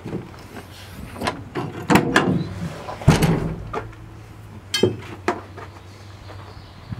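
Pickup truck cap's rear glass window unlatched and swung open, then lengths of steel threaded rod sliding and clanking as they are pulled out of the truck bed: a run of separate knocks and clunks, the loudest about three seconds in, and a short metallic ring near five seconds.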